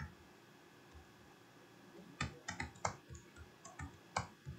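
Computer keyboard keys clicking: a quick, irregular run of keystrokes starting about two seconds in.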